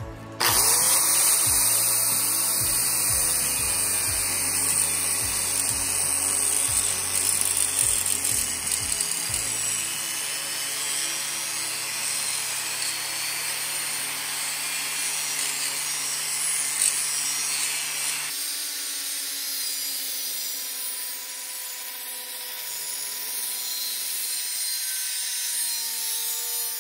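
DeWalt angle grinder with a quarter-inch grinding wheel grinding a fuller into a steel sword blade, a loud continuous grinding hiss that starts about half a second in. About two-thirds of the way through, the hiss eases and a steady motor whine comes through.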